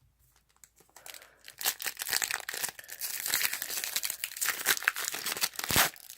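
Foil wrapper of a Topps Chrome trading card pack crinkling and crackling as it is handled and pulled at to tear it open, starting about a second in, with one sharper crack near the end.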